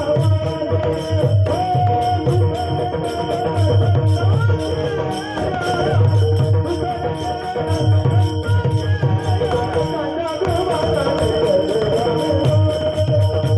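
Instrumental Varkari devotional kirtan music with no singing: a sustained, wavering melody over repeated low drum strokes and rhythmic jingling of hand cymbals.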